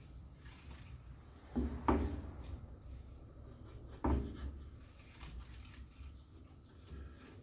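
Three dull knocks from handling things on a workbench: two close together about a second and a half in, a third about four seconds in, over faint handling noise.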